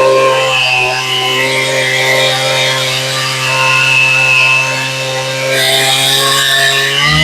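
Two-stroke chainsaw with a 56-inch bar running at steady high revs under load, ripping lengthwise through a log in a chainsaw mill.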